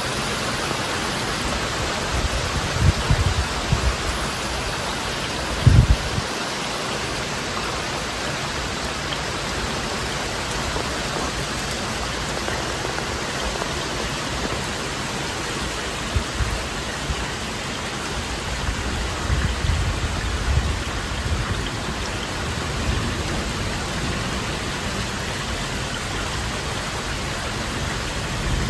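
Heavy rain falling steadily in a thunderstorm, a constant hiss of downpour. A few brief low rumbles stand out about 3 and 6 seconds in, and again around 20 seconds.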